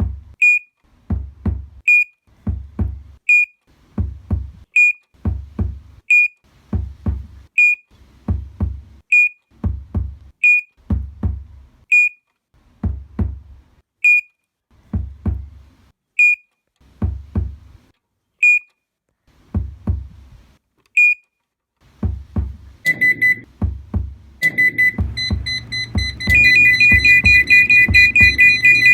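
Heart-monitor sound effect. A heartbeat sounds as double thumps about every second and a half, each with a short high beep. After about 21 s the beeps stop, and from about 23 s the monitor sets off its alarm, a continuous high tone with rapid beeping over the still-thumping heartbeat, the sign of the patient failing.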